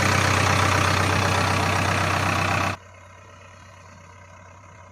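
Heavy diesel engine running steadily with a deep hum, cutting off abruptly about three seconds in to a much quieter low hum.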